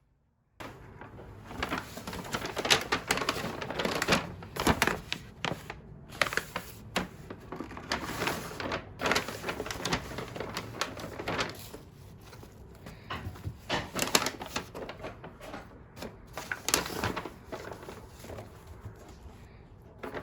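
Parcel packaging being handled and opened: irregular crinkling, rustling and clicking of plastic and paper wrapping, starting about half a second in and coming in busy flurries.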